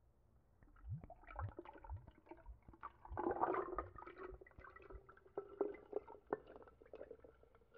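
Ginger beer poured from a glass bottle into a glass jar of ice cubes, gurgling and splashing, with ice cubes clicking and cracking as the liquid hits them. The pour starts about a second in and is loudest about three to four seconds in.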